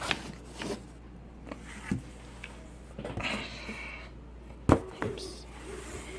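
A cardboard model box being handled and opened: scattered light taps and clicks, a brief rubbing of cardboard about three seconds in, and one sharp knock a little before the end.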